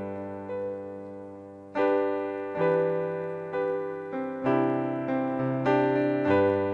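Solo piano playing slow, sustained chords, each struck and left to fade before the next.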